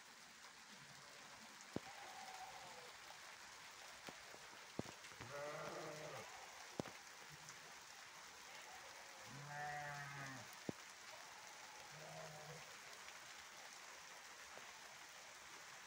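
Faint bleating of a grazing sheep flock, four or five calls, the loudest about five and ten seconds in, over a steady hiss of light rain. A few sharp single taps are heard, typical of raindrops hitting something close by.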